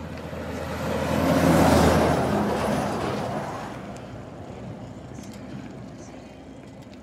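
Tanker truck going past in the oncoming lane: its engine and tyre noise swell to a peak about two seconds in, then fade over the next couple of seconds.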